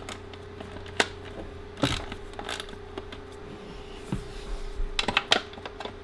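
Scattered clicks and small clinks of a hand screwdriver and screws while the air box is unscrewed, with a cluster of clicks about five seconds in, over a steady low hum.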